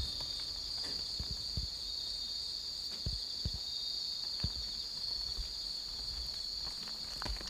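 Steady high trill of crickets in the background, with a few soft low thumps of a kitten's paws on tatami mats.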